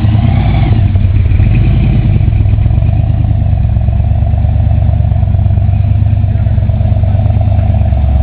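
Willys coupe hot rod's engine running at low revs as the car pulls away slowly, a loud, steady exhaust note with fast, even pulses.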